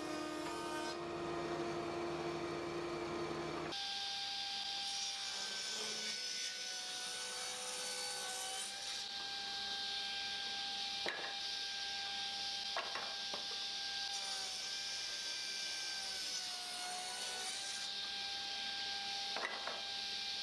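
A power saw running and ripping walnut and maple boards into strips: a steady motor whine that dips in pitch now and then as the blade takes load, over the hiss of the cut, with a few sharp knocks.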